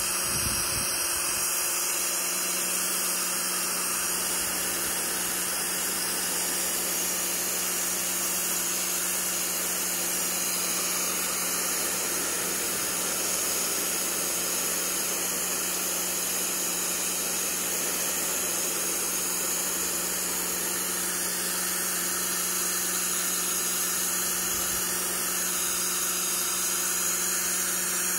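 Pressure washer running steadily, its high-pressure jet hissing against the hull of a canoe as it strips the grime from the weathered paint, with a steady machine hum underneath.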